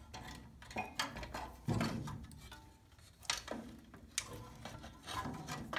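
Metal parts and tools being handled during a teardown: about five separate knocks and clicks, the loudest a little under two seconds in.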